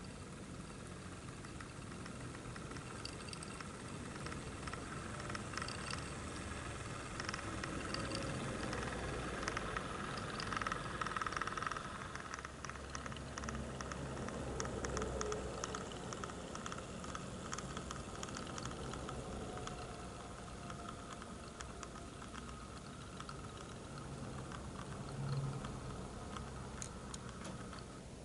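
Model railway locomotive running on the layout: a faint electric-motor hum with a patter of small clicks from the wheels on the track, growing louder near the middle. A brief low bump comes near the end.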